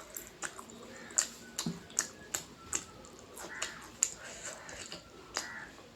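Close-miked mouth sounds of eating: wet smacks and clicks of chewing, irregular, about two a second.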